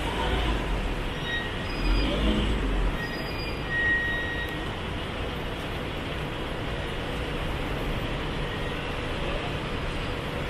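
Steady roadway traffic noise, with a deeper rumble twice in the first three seconds and a few faint thin high squeals.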